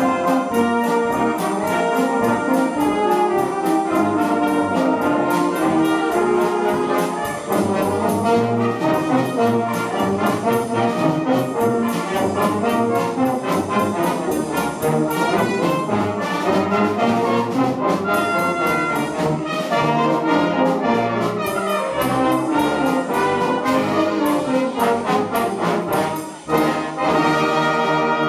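Brass band with drum kit playing a lively piece, the drums keeping a steady beat, finishing on a long held chord near the end.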